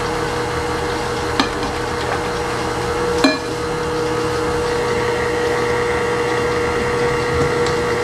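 A steady hum with a constant tone runs throughout, under kitchen handling noises. A wire whisk clinks against a glass mixing bowl about a second in. It clanks once, louder, about three seconds in. After that, a spatula scrapes inside a stainless steel stand-mixer bowl.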